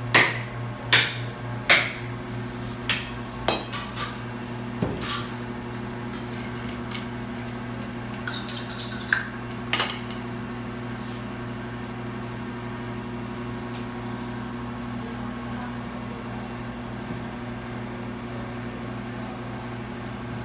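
Butcher's cleaver chopping beef on a wooden block: heavy chops about once every 0.8 s for the first two seconds, then lighter, scattered knocks that thin out by about ten seconds in. A steady low hum runs underneath.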